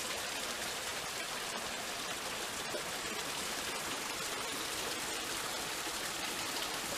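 Mountain stream rushing steadily below, an even hiss of running water.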